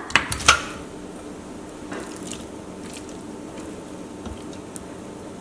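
Raw pork rib pieces tipped from a glass bowl into an empty stainless steel pot, landing with a few wet thuds in the first half second. After that only faint occasional taps as the pieces are spread out with a silicone spatula.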